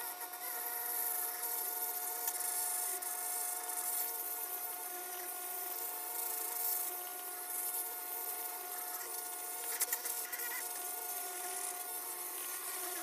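Dremel rotary tool set at speed 5 spinning a grinding stone against the port wall of an aluminium cylinder head: a steady high whine with the gritty hiss of the stone polishing the rough cast surface. A brief scrape or tick near the end.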